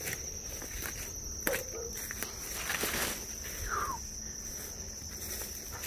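Insects chirring in a steady, high-pitched drone, with footsteps and leaves rustling as someone pushes through overgrown brush.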